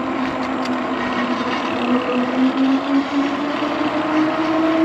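Mooncool TK1 electric trike's motor whining as it is ridden. The pitch dips about two seconds in and then climbs slightly, over a steady rushing noise.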